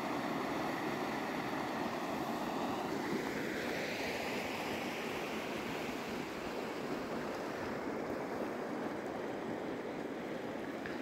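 Shallow mountain river rushing steadily over stones.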